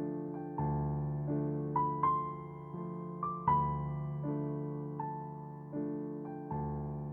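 Gentle keyboard music on electric piano: slow sustained chords with a few higher melody notes, each fading slowly after it is struck.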